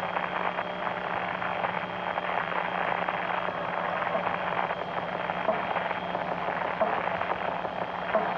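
Steady static-like hiss with a low, even hum underneath and no beat.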